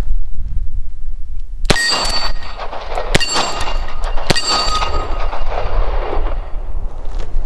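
Three double-action shots from a Taurus 605 Poly Protector revolver, the second about a second and a half after the first and the third about a second later. Each shot hits an AR-500 steel plate, which clangs and rings out, fading over a second or so.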